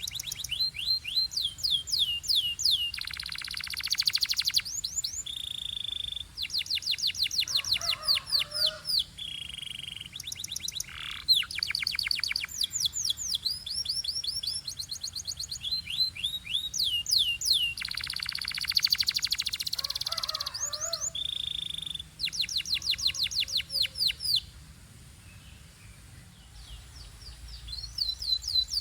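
Canary singing in fast rolling trills of rapidly repeated falling notes, broken by short level whistles. It eases into a quieter lull near the end, then the trills start again.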